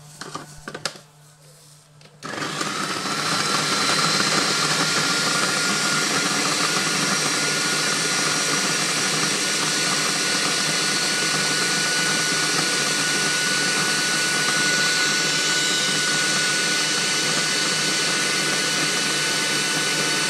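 A few clicks, then about two seconds in a Kenwood food processor's motor starts and runs steadily with a whine, its blade chopping toast cubes into breadcrumbs.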